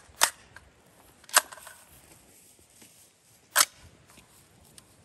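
Three sharp metallic clicks from an AR-15 rifle being handled, the first two about a second apart and the third about two seconds later.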